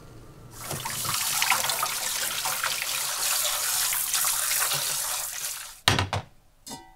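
Kitchen tap running into a glass bowl in a stainless-steel sink while hands rinse blanched hijiki seaweed. The water stops abruptly after about five seconds, followed by two or three sharp knocks of a lidded pot set on a glass induction hob, the last with a short ring.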